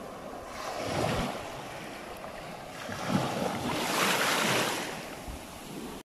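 Small sea waves washing in over a shallow bed of shells and pebbles, swelling about a second in and again, loudest, from about three to five seconds in, with wind buffeting the microphone.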